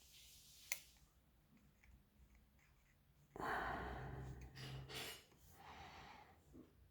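A sharp click under a second in. A few seconds later a person breathes out heavily in a long sigh, then takes another shorter breath.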